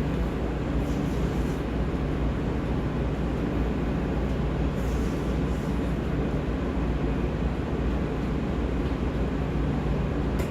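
Steady low mechanical hum with a constant low drone.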